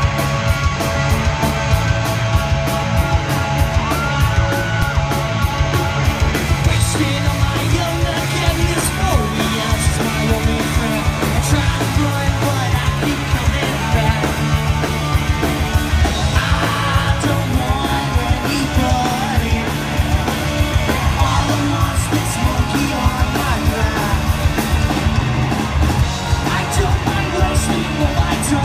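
Punk rock band playing live through a PA: electric guitar, bass guitar and drums, with the singer yelling into the microphone.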